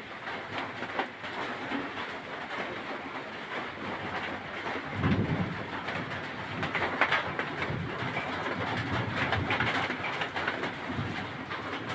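Heavy rain pouring down in a summer thunderstorm, a dense steady hiss with many small drop clicks, and low gusty swells about five seconds in and again around seven seconds.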